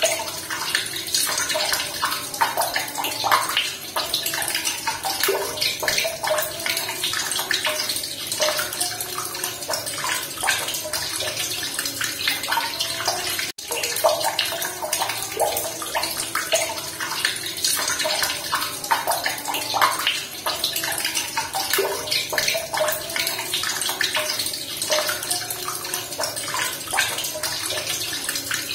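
Running water splashing steadily at close range, full of small bubbling blips, with a split-second break in the sound about halfway through.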